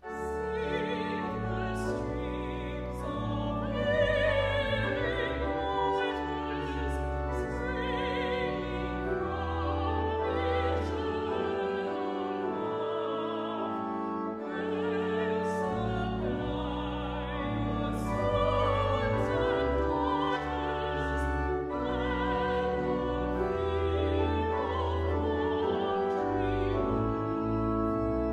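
Slow sacred music: church organ holding sustained chords and low bass notes under a singer's melody with strong vibrato. It starts suddenly at the beginning.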